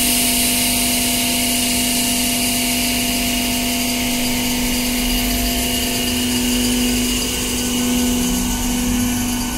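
Three-phase MEMU electric train pulling away slowly, its motor coach giving a steady electrical whine of several held tones over a constant hiss.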